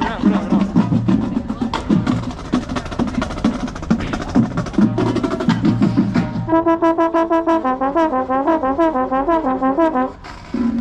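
Marching showband playing loudly: brass with percussion hits. About two-thirds of the way in, the low band sound drops away and a fast, bright run of notes takes over, and a brief break follows near the end.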